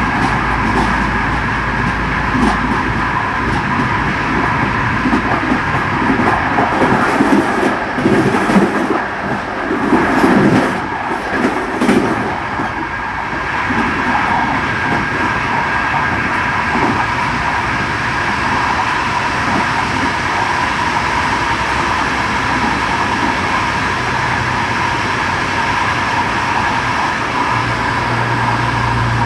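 Moving train heard from its front cab: a steady running noise with a high, steady whine. About six seconds in, the wheels clatter louder and unevenly for several seconds as they cross the junction's points, then settle back to the steady run.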